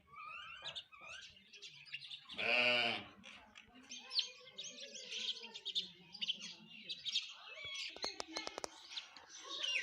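A flock of house sparrows chirping constantly in quick, high notes. A little over two seconds in comes a single louder, lower-pitched call lasting about half a second, and a quick run of sharp clicks about eight seconds in.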